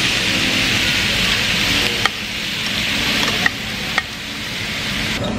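Food sizzling on a hot grill, a steady hiss broken by three sharp clicks.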